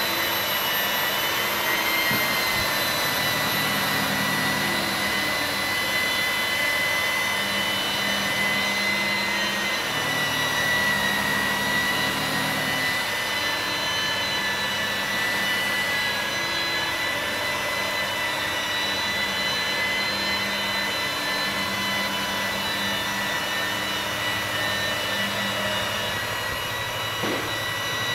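Handheld angle grinder with a felt polishing pad running steadily while buffing car windshield glass with polishing compound: a constant high motor whine over the hiss of the pad rubbing on the glass.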